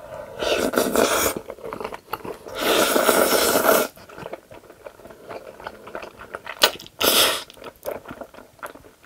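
A person eating saucy black bean noodles: long, loud slurps of noodles about half a second in, around three seconds in and again near seven seconds, with wet chewing clicks in between.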